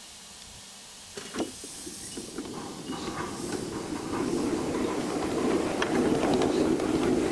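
Ride-on live steam miniature locomotive getting underway with a loaded train: a quiet steam hiss, then from about a second in the running sound of the engine and cars builds up and grows louder, with sharp clicks from the wheels on the track near the end.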